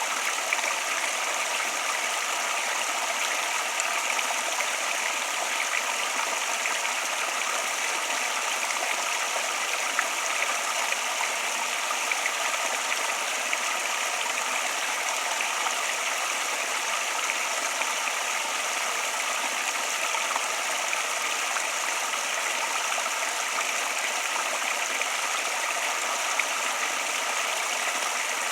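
Flowing water rushing steadily, like a stream or small cascade, in a continuous unbroken hiss with nothing below the low mids.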